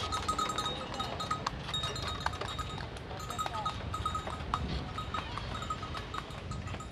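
Bell on a delman horse's harness ringing in a quick, steady rhythm as the horse-drawn cart moves along.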